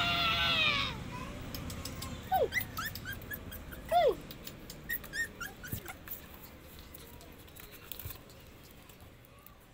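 Young puppies whimpering: a long whining cry that falls and fades about a second in, then two sharp falling yelps about two and four seconds in, with fainter high squeaks and light clicks among them, trailing off toward the end.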